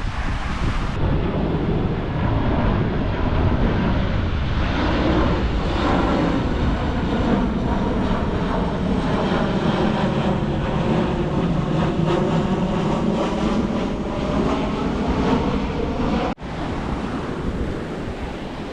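An aircraft passing overhead, its engine drone rising and slowly shifting in pitch over wind noise and surf. The sound drops out abruptly about sixteen seconds in, leaving only wind and waves.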